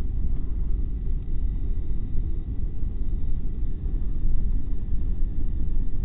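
Steady low rumble of a car's road and engine noise heard from inside the cabin while driving, with a faint steady high tone.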